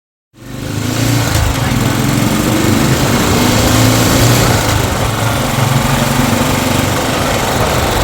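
Loud, steady engine-like rumble with a low hum under a rushing hiss, cutting in abruptly a moment in.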